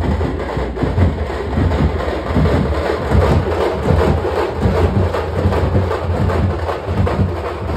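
Tamate drum band playing loud and fast: frame drums beaten with sticks over a bass drum, in a dense, driving rhythm.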